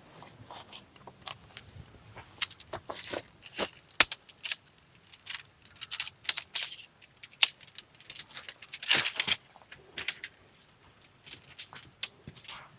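Handling noises: irregular clicks and light clinks with short bursts of rustling, as gear is picked up and set down. A sharp knock about four seconds in and a longer rustle about nine seconds in are the loudest.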